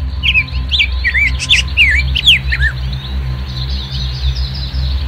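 Birds chirping: quick rising and falling calls for the first three seconds, then a busier spread of fainter chirps, over a steady low hum.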